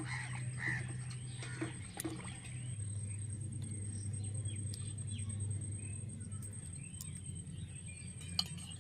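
Faint bird chirps over a steady low hum that steps down slightly in pitch about three seconds in, with a few light clicks as the stuffed gourds are handled.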